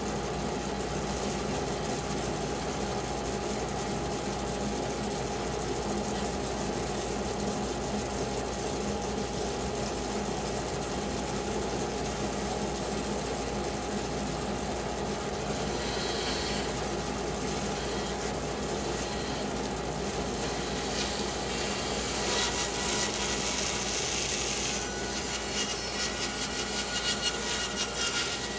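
Bandsaw running and cutting through a pecan log: a steady machine hum with the blade rasping in the wood, harsher and brighter in the last several seconds before it drops away at the end.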